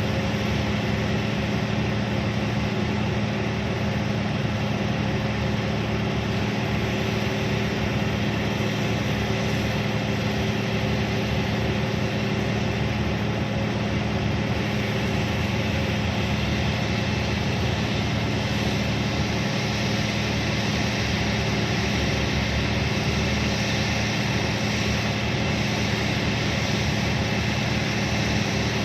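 Heavy diesel engine of a Hitachi 1200 mining excavator running at a steady speed: a constant low drone that doesn't rise or fall.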